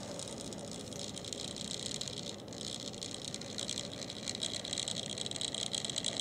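HO-scale cast-brass Bowser 4-8-2 model steam locomotive running along the track: a steady high-pitched whir from its electric motor and gears, with rattling from the wheels and mechanism, growing louder about two and a half seconds in.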